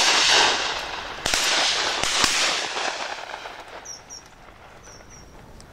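Three shotgun shots fired at flying wood pigeons, the first right at the start and two more about a second and two seconds in, each rolling away in a long echo.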